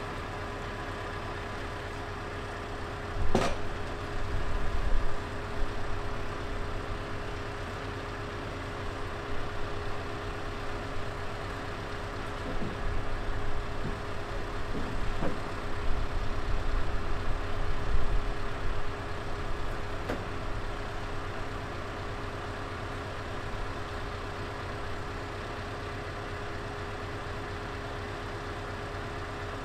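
Scania R650's V8 diesel idling steadily with the truck parked, a constant hum with a few steady tones over it. A single sharp knock about three seconds in, and the running swells and grows uneven for a few seconds in the middle.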